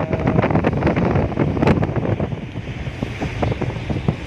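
Wind buffeting the microphone on a cruise ship's open upper deck: a loud, gusty rumble with crackles, easing a little about two seconds in.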